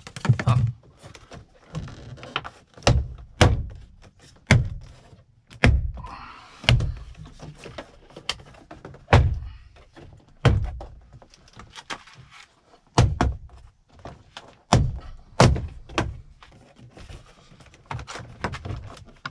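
BMW inner door trim panel being pulled off the door: a series of about fifteen sharp knocks and thunks at irregular intervals as the panel is worked free of its clips.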